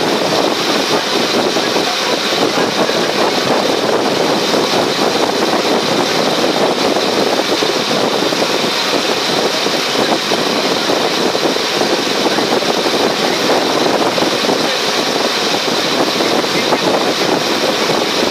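A passenger ferry's engine running steadily while the boat is under way, a loud unchanging drone.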